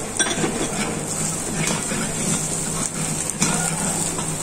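Onion, garlic, ginger and green chilli sizzling in hot ghee in a large copper pan while a steel ladle stirs them, with a couple of sharp clinks of the ladle against the pan.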